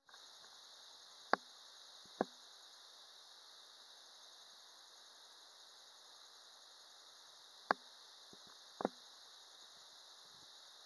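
Four sharp knocks from a handheld phone being handled, two about a second apart near the start and two more near eight and nine seconds, over a faint steady high-pitched hiss.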